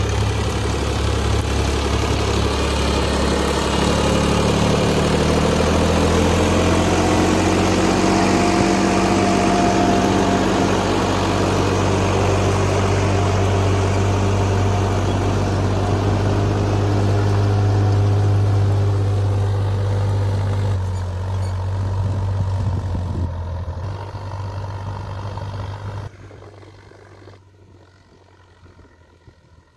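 Massey Ferguson 7250's 50 hp three-cylinder diesel engine running steadily under load as the tractor pulls a 14-disc harrow through dry soil, its pitch rising and falling slightly as it passes close by. A few seconds before the end it drops suddenly to a much fainter, distant engine sound.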